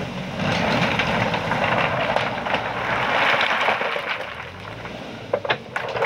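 JCB backhoe loader's diesel engine running under load as its front bucket pushes into a pile of rubble stones, the rocks grinding and rattling against the steel bucket and each other. A few sharp stone knocks come near the end.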